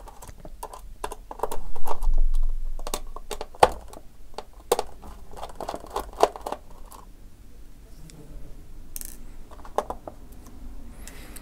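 Small screwdriver clicking, tapping and scraping against a laptop display lid's edge while the WLAN antenna cables are worked loose. The light clicks come thick and fast in the first half and only now and then later.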